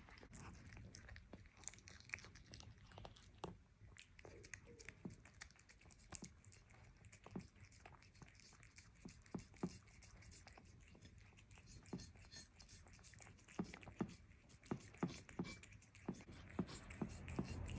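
Bengal cat chewing the last scraps of food and licking a plate clean: faint, irregular small clicks of chewing and tongue laps, coming faster near the end.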